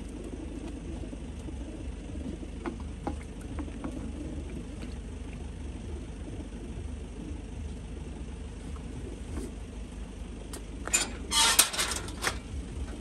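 Steady low hum of an idling engine, with a few light knocks. A short, loud rattling clatter comes about 11 seconds in.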